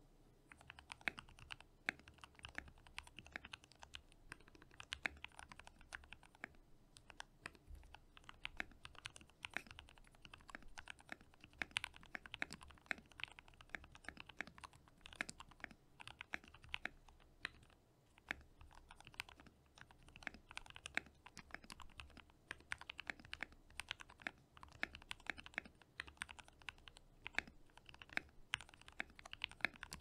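Fast touch-typing on a NK65 Superuser Edition 65% custom mechanical keyboard with lubed Gateron Milky Yellow linear switches and PBT keycaps: a quick, even clatter of keystrokes at about 82 words per minute, starting about half a second in.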